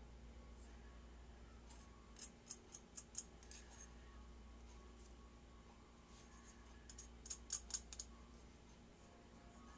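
A metal spoon clicking lightly against a metal bottle cap as embossing powder is spooned into it: two short runs of quick clicks, about two seconds in and again about seven seconds in.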